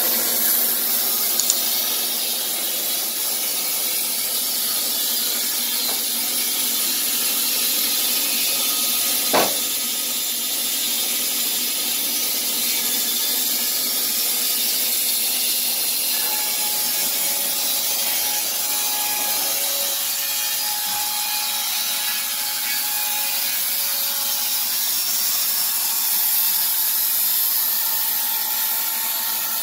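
Wood-Mizer LT15 electric band sawmill cutting through a log: a steady hiss and rasp of the band blade in the wood over the hum of the motor. A single sharp knock comes about nine seconds in, and a faint whine is heard in the second half.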